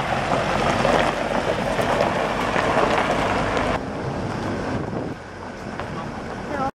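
Hyundai Starex 4WD van towing a trailer on a gravel track: engine and tyres on gravel, with wind on the microphone. The level drops about four seconds in and again about five seconds in, and the sound cuts off abruptly near the end.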